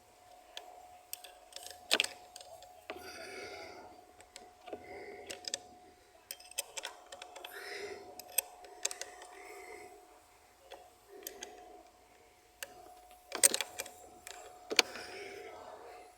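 Small steel spanners clinking and clicking on the battery terminal clamp nuts while they are done up, in scattered sharp knocks, with a few louder clanks about two seconds in and again near the end.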